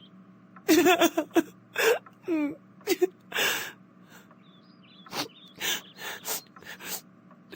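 A character crying: wavering wails for the first few seconds, then a string of short gasping sobs.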